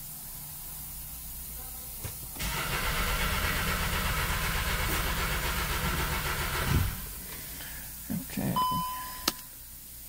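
Volkswagen Beetle 1.8-litre turbo engine cranking on the starter for about four seconds and then stopping, without firing: the car's crank-no-start fault. A short beep follows near the end.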